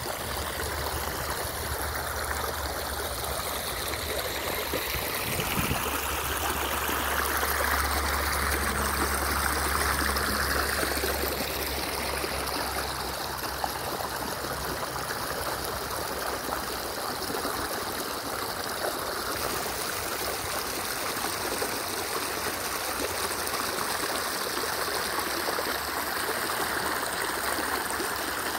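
Shallow creek water running and trickling over rocks, a steady rushing that swells for a few seconds about a quarter of the way in.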